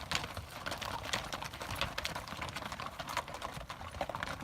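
Footsteps of a hiker walking up a rocky mountain trail: irregular hard clicks and scuffs, several a second.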